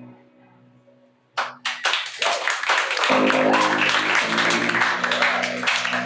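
Audience applause and clapping, starting about a second in once the song's last guitar note has died away, with low sustained tones under it.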